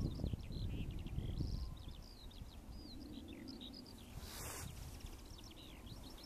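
Many small birds chirping and twittering, short high calls overlapping one another like a flock. A low rumble sits under the first second and a half, and a brief rustle comes about four and a half seconds in.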